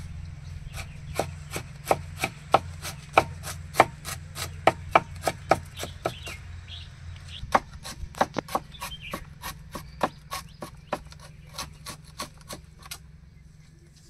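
Large kitchen knife chopping onions on a wooden board: sharp, regular knocks of the blade on the wood at about three a second, with a short pause about halfway through.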